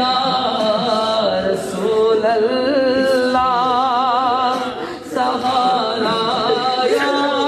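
A man singing a naat, a devotional song in praise of the Prophet, unaccompanied, with long wavering held notes around the middle and a brief breath pause about five seconds in.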